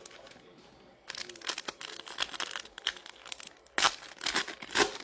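Plastic and foil wrapping of trading-card packs or boxes being torn and crinkled, starting about a second in, with two louder rips near the end.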